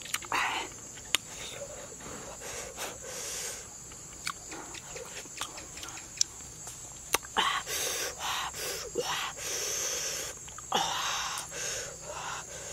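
Close-up eating sounds: sharp mouth clicks and smacks while chewing fish. Several loud hissing breaths through pursed lips, the longest in the second half.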